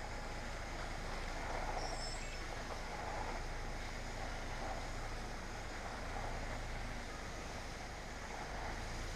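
Yamaha DragStar Classic's V-twin engine running steadily at low speed as the motorcycle rolls slowly, a constant low rumble.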